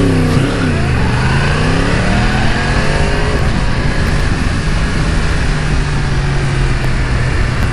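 Yamaha R1's crossplane inline-four, through a slip-on exhaust, pulling away from a standstill: the revs climb over the first couple of seconds, then settle into a steady note from about three seconds in as the bike cruises.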